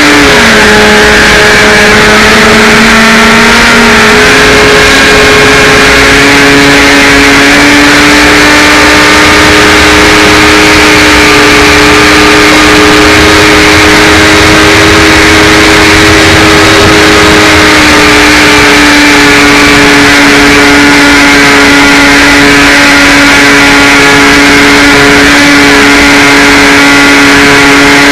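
HawkSky RC glider's electric motor and propeller whining loudly at a steady pitch over rushing wind noise. The pitch dips just after the start and comes back up about four seconds in.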